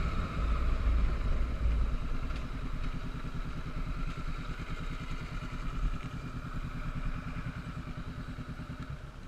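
Honda CB500X parallel-twin motorcycle engine running at low revs, its even firing pulse growing gradually quieter as the bike slows down.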